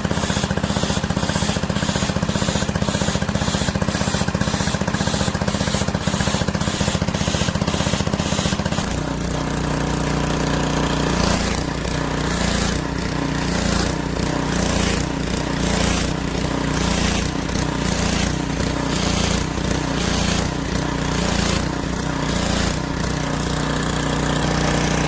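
Pressure washer's petrol engine running while water sprays from the gun, with a rhythmic pulsing about twice a second. About nine seconds in the engine note drops and changes. The pressure is fluctuating, which the owner puts down to something wrong with the valve.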